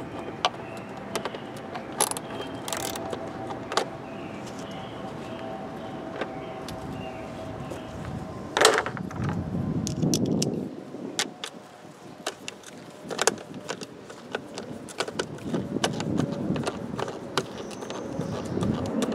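Scattered small metallic clicks and taps of a socket tool and nut driver working the fuel pump's mounting screws, with one sharper knock about nine seconds in.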